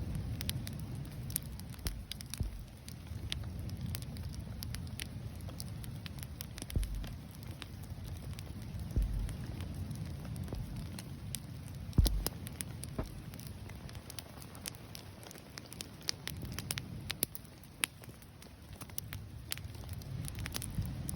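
Bonfire crackling, with irregular sharp pops and snaps, the loudest about twelve seconds in, over a low steady rumble.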